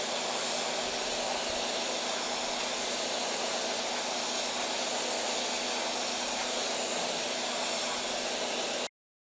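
Pressure washer spraying: a steady, loud hiss of the high-pressure water jet with a faint hum underneath. It cuts off suddenly near the end.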